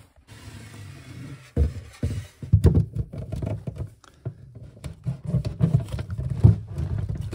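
Handling noise in a cupboard under a kitchen sink: dull knocks and rustling as plastic waste fittings and pipework are moved about. It is fainter for the first second and a half, then turns into a string of irregular thuds.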